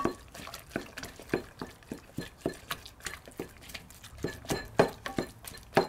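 Wooden spatula stirring and breaking up chunks of meat and vegetables in an enamelled pot, with irregular soft knocks of the spatula against the pot a few times a second.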